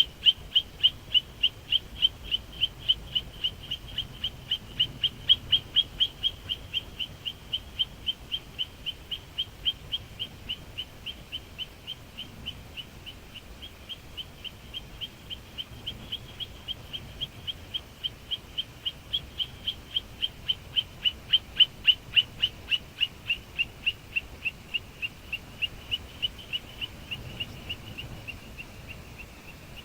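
A songbird calling one short, high note over and over, about three times a second, steady and unbroken.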